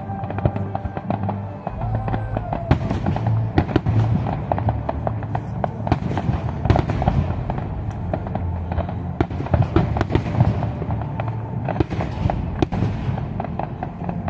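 Fireworks display: aerial shells bursting, with dense rapid crackling reports throughout, over music with a deep pulsing bass.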